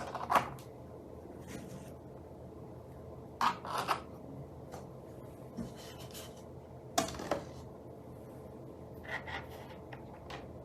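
Parts of a 3D-printed paint station being handled: a handful of short rubbing and clicking noises spread apart, the sharpest about seven seconds in.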